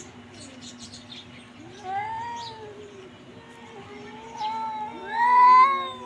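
Domestic cat meowing: three drawn-out meows that rise and fall in pitch, the last one near the end the loudest.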